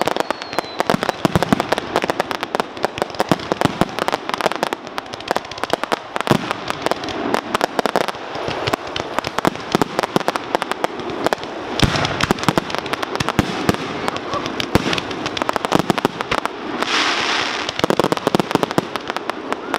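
Fireworks display: aerial shells and multi-shot launches going off in a dense string of booms, pops and crackle with no break. A short hissing rush comes near the end.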